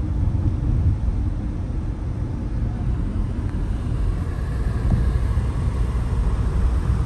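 Road and engine noise heard from inside a moving car's cabin: a steady low rumble as the car drives along a highway.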